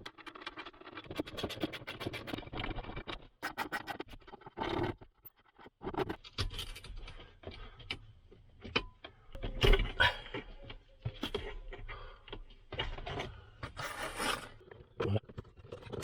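Hand work inside a car interior during dashboard removal: irregular clicks, scrapes and knocks of trim parts and tools being handled, with a few louder knocks partway through.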